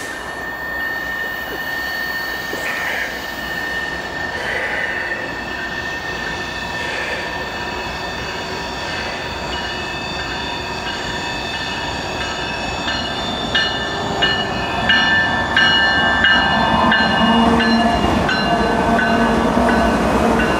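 CSX diesel-hauled freight train approaching and passing, with steady high-pitched wheel-and-rail squeal throughout. It grows louder as the locomotive nears, and in the last several seconds the locomotive's low engine drone and quick clicks of wheels over the rails come in as it goes by.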